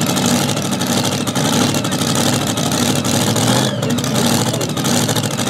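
Supercharged engine of a super modified two-wheel-drive pulling truck running loud and steady at the end of its pull.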